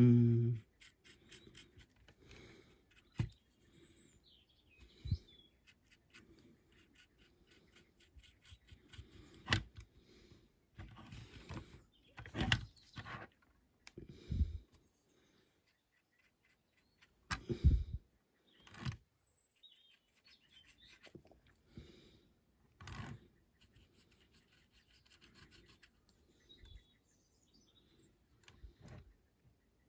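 Small handling noises while hand-painting a diecast model car: irregular light taps and knocks of the metal model and tools on the work surface, with soft rubbing and brushing between them.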